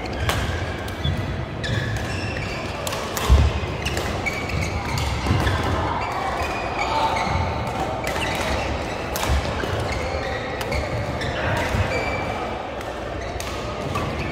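Badminton play in a large indoor hall: rackets hitting shuttlecocks with sharp pops, shoes squeaking briefly on the court surface and feet thudding, the loudest thud about three seconds in. Players' voices are heard faintly in the background.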